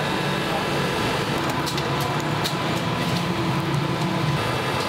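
Steady din of a busy street food stall: a constant traffic-like hum with indistinct voices. A few short sharp clicks come in around the middle.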